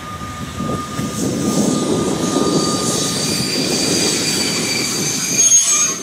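Wheels of Habbins sliding-wall freight wagons squealing on the rails over a low rumble as a Unimog road-rail vehicle shunts them. The squeal is a steady whistle that gives way to a higher squeal about halfway through.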